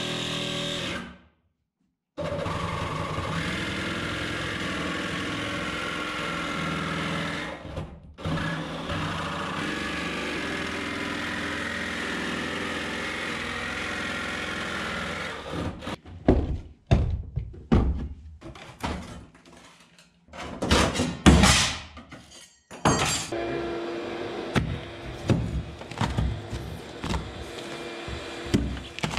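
A cordless jigsaw runs steadily, cutting an opening in the aluminum side bench of a john boat, stopping briefly twice. From about halfway on it gives way to irregular knocks and cracks as the white foam filling is broken out of the opening.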